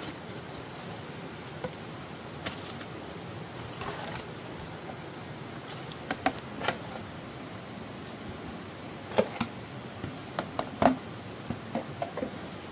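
Scattered light knocks and clicks, bunching together near the end, over a steady background hiss.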